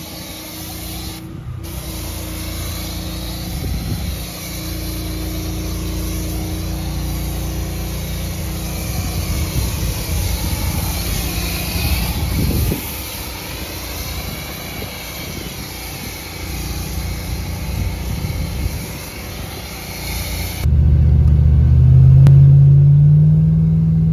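Steady hiss of a pressure-washer jet spraying water over a car's engine bay. About 20 seconds in, the hiss cuts off abruptly and a loud low drone, rising in steps, takes over.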